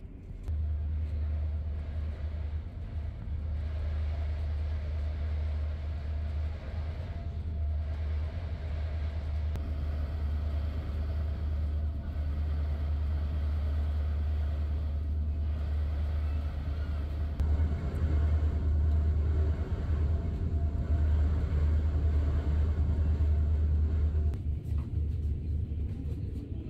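Queen Beetle high-speed ferry under way at speed, heard from inside the passenger cabin: a steady low engine-and-hull rumble with a faint hum and rush of water above it, growing a little louder about two-thirds through.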